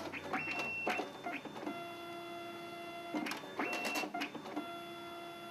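Zebra ZXP3 dye-sublimation card printer at work: clusters of clicks and clacks from its mechanism, with two spells of steady motor whine lasting a second or two each, as it moves its multi-panel colour ribbon and prints a card.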